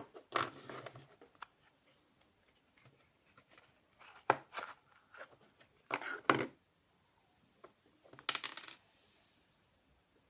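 Toy packaging being handled: crinkling, tearing and clicking in four short bursts, separated by quiet.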